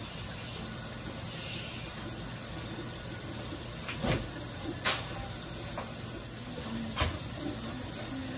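Steady sizzling hiss of food frying in a pan. A few short knocks and clicks about four, five and seven seconds in as a refrigerator door is opened and things are taken out.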